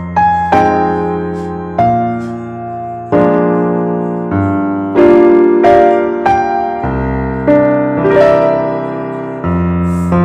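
Background piano music: a slow melody of single notes and chords that ring out and fade.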